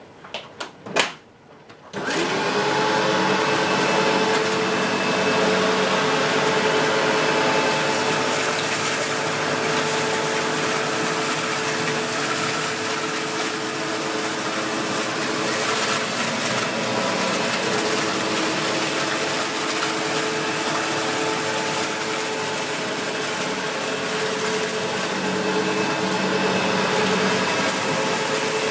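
A few clicks, then a SEBO X4 bagged upright vacuum cleaner switches on about two seconds in, its motor spinning up quickly and then running steadily as it vacuums carpet.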